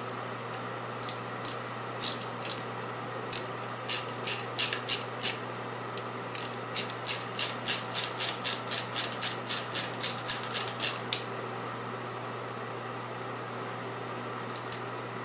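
Hose clamp being tightened on a silicone coolant hose with a hand tool: a run of sharp clicks, scattered at first and then about three a second, stopping about eleven seconds in.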